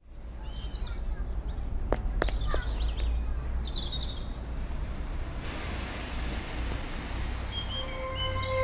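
Outdoor ambience with birds chirping over a low rumble, a few sharp clicks about two seconds in, and a hiss that builds from about halfway. Near the end, soft sustained music notes come in.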